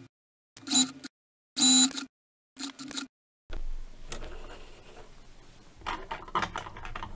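Janome electric sewing machine stitching a seam in several short bursts of half a second or so, each a steady motor hum and whine. About three and a half seconds in the stitching stops, and fabric rustles and light clicks follow as the sewn strip is drawn out from under the presser foot.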